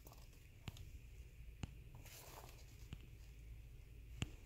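Faint handling noise: a few soft ticks and light rustling as a sneaker is turned over in the hand.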